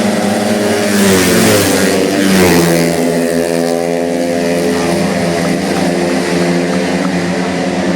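Tuned 131cc automatic scooter engines running hard; the pitch drops about one to three seconds in, then holds a steady drone.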